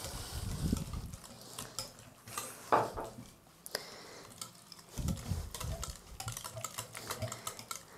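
Wire whisk beating a thick egg and curd-cheese mixture in a bowl: a quick run of clicks and taps as the wires knock against the bowl, with one louder knock near three seconds in.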